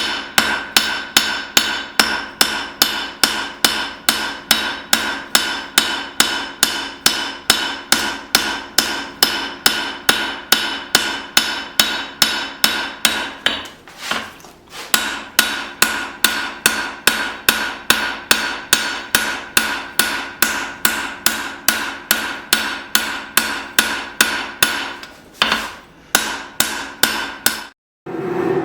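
Blacksmith's hammer striking hot leaf-spring steel on an anvil in a steady rhythm of about three ringing blows a second. The hammering breaks off briefly about halfway, resumes, and stops near the end.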